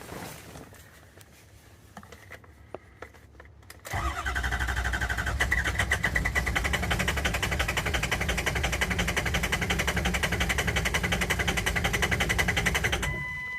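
Starter cranking a 2004 Ford 6.0 Power Stroke diesel V8 for about nine seconds with an even pulsing rhythm, the engine never catching: a crank-no-start. A steady electronic beep sounds just after the cranking stops.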